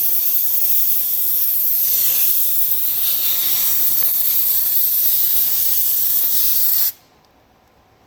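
Loud, steady hiss that cuts off abruptly about seven seconds in.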